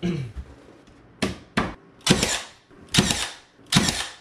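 Nail gun firing five times at uneven intervals, each shot a sharp crack with a short hiss after it, tacking a freshly glued head-jamb extension into place.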